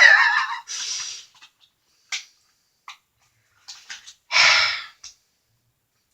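Heavy exasperated breaths, a long one with a voiced sigh in the first second and another about four and a half seconds in. A few small sharp clicks fall between them.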